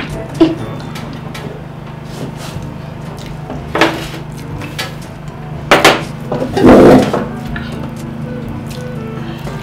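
Cutlery and crockery at a meal: a few sharp clinks of a fork or spoon against plates and bowls, and a louder knock with some handling noise about seven seconds in, over a steady low hum.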